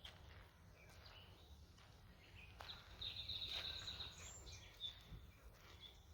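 Small songbirds chirping in woodland, with a rapid high trill about three seconds in.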